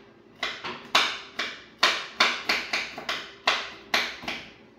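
Kitchen knife chopping almonds by hand: a string of sharp knocks as the blade strikes the work surface, about three a second at an uneven pace.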